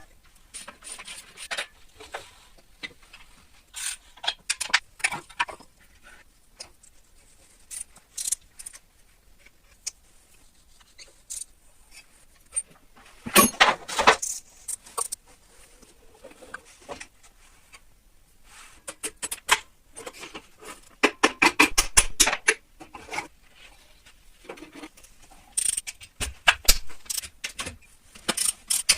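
Workshop handling sounds: scattered clinks and taps of metal parts and tools, with a louder scraping burst about halfway through and runs of quick ticking and scraping later.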